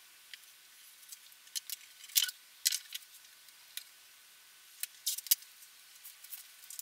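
Masking tape being pulled off the roll and pressed along a guitar neck: scattered faint crackles and ticks.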